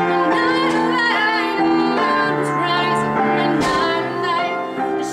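A woman singing a song with instrumental accompaniment; her voice moves between notes over long held chords.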